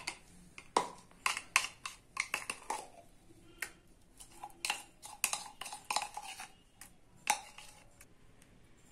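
Steel spoon scraping and knocking against a clear mixer jar and a bowl while thick green garlic paste is scooped out: irregular clicks and scrapes, the sharpest knock near the end.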